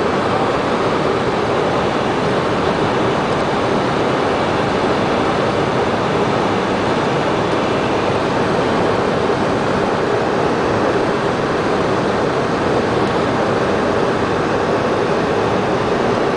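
Steady rushing cockpit noise of a Cessna Citation business jet in flight on approach: airflow over the airframe and its twin turbofan engines, heard from inside the flight deck.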